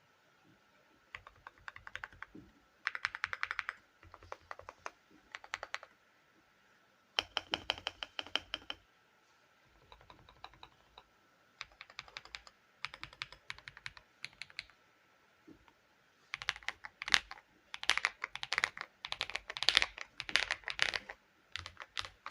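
Typing on a gasket-mounted mechanical keyboard with lubed KTT Kang White linear switches and a polycarbonate plate: bursts of quick keystrokes with short pauses between, faster and louder in the last several seconds.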